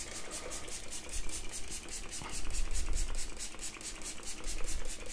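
Hand trigger spray bottle misting water over dry compost, squeezed rapidly and evenly so that it gives a quick train of short hisses, several a second.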